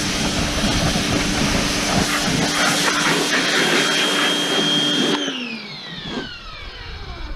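Electric pressure washer running with the hiss of its water jet, then about five seconds in the spray stops and the motor and pump wind down with a falling whine.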